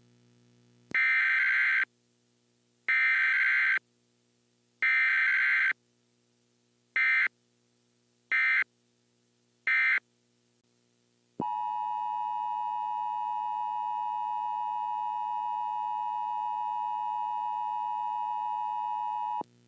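Emergency Alert System tones: three roughly one-second bursts of SAME header data squawks about a second apart, then three short bursts. About halfway through, the steady two-tone attention signal starts, holds for about eight seconds and cuts off abruptly.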